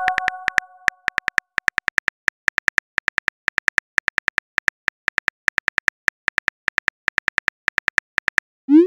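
Simulated phone keyboard typing sound effect: quick clicks, several a second, as a text message is typed. A chat-app notification chime fades out over the first second, and a short rising swoop, the message-sent sound, comes near the end.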